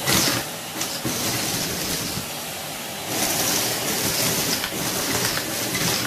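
Numatic Henry vacuum cleaner running steadily, its metal wand sucking up loose wood shavings, with a high hiss that grows louder in stretches as the nozzle works the pile.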